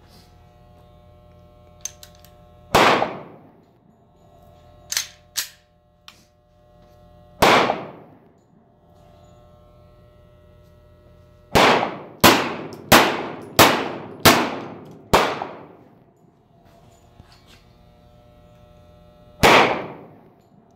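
Glock pistol in .40 S&W firing. Two single shots come a few seconds apart, then a quick string of six shots about two-thirds of a second apart, then one last shot near the end. Each is a sharp crack with a short echo trailing off, and a few lighter knocks fall between the first two shots.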